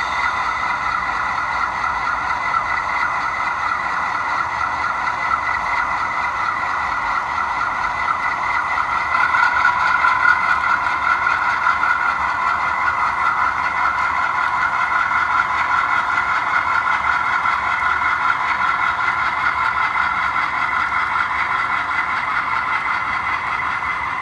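Sound-equipped HO scale model of a GE B36-7 diesel locomotive: the decoder's diesel engine sound runs steadily through the model's small speaker, thin and without deep bass, and grows a little louder about ten seconds in.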